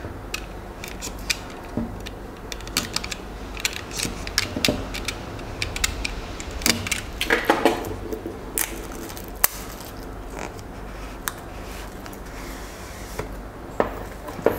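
Snap-off utility knife cutting the seal of a small white cardboard box, then hands handling and opening cardboard packaging: a run of irregular clicks, scrapes and taps.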